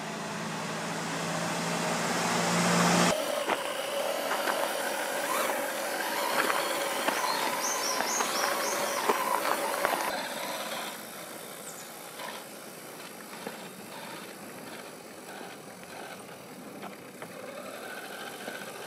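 A 1/8-scale RC crawler with a brushed 550 electric motor, driven over rock and gravel. The motor and gears give a steady whine, with small clicks and knocks from the tyres and chassis. It is louder for the first ten seconds, then quieter, with a few abrupt changes between shots.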